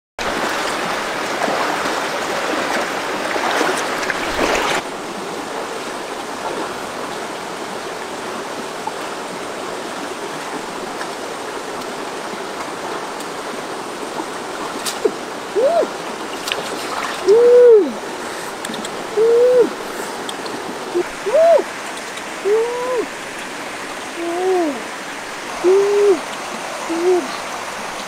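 Shallow stream running over rocks, louder for the first few seconds and then dropping suddenly to a steady trickle. From about halfway, about a dozen short hooting "ooh" calls follow one another, each rising then falling in pitch.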